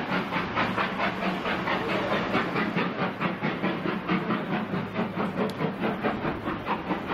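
Steam locomotive working hard, its exhaust beats coming as a rapid, even chuffing of about five a second and echoing.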